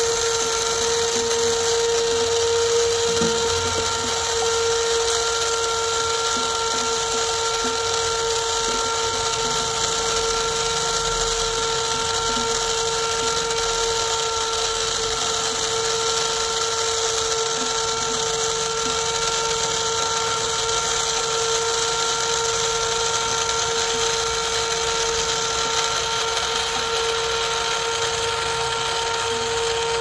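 Small electric motor and gearbox of an RC cement mixer truck turning its drum: a steady whine at an even pitch.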